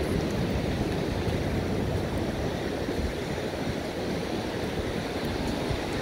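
Steady rush of ocean surf with wind buffeting the microphone, mostly a low rumble.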